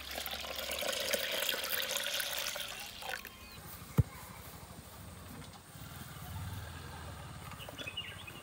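Watermelon juice poured from a steel mug into a hollowed-out watermelon shell, a splashing trickle for about three seconds. A single sharp click about four seconds in, then a quiet background with a faint low hum.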